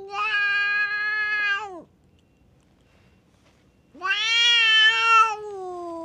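Cat yowling, the drawn-out warning howl of a cat standoff: two long loud calls, the first ending a little under two seconds in, the second starting about two seconds later and sliding down in pitch as it fades.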